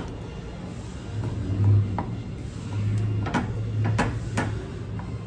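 Wooden spatula scraping and knocking in a nonstick frying pan as a roasted eggplant is pressed and spread flat in beaten egg, with a handful of sharp taps over a low rumble.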